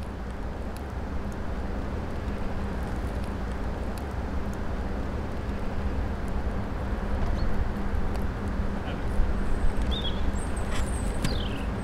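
Steady rumble of distant road traffic, with a few small birds chirping near the end.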